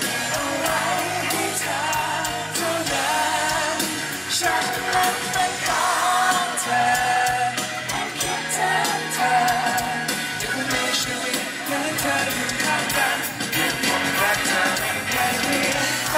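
Live pop band performance: a male lead singer sings into a handheld microphone over the full band, with a drum beat.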